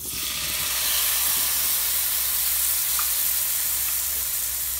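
Chicken cooking water poured into a hot, oiled kadai of fried chicken and onions, sizzling as it hits the pan. A steady sizzle starts suddenly and eases a little toward the end.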